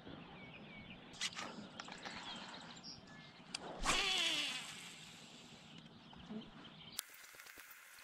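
A cast with a baitcasting reel: a brief rush about four seconds in as line pays out, with the spool's whine falling in pitch as it slows. A few sharp clicks come before it and another near the end.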